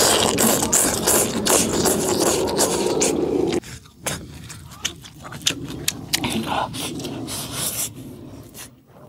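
A person loudly slurping bean sprouts and spicy broth off chopsticks. The slurp cuts off abruptly about three and a half seconds in and gives way to close-up chewing with small wet clicks and lip smacks.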